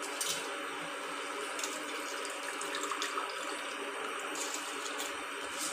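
Spiced water simmering in a pressure cooker as soaked rice is dropped in: a steady watery hiss with a few faint clicks.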